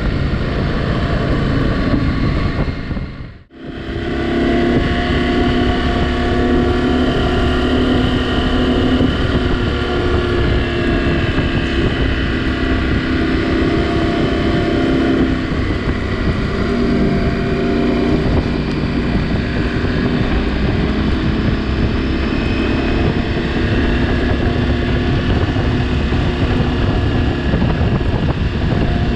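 KTM 790 Adventure R's parallel-twin engine running steadily while riding, with wind noise on the microphone. The sound drops out briefly about three and a half seconds in.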